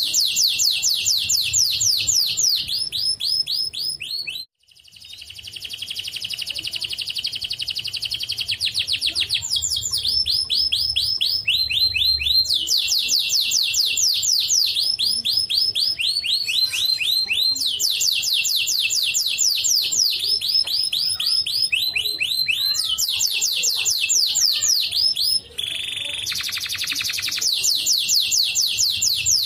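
White domestic canary singing a long, continuous song of rapid trills, each a quick run of repeated notes, switching to a new trill every second or two, with a brief pause about four seconds in.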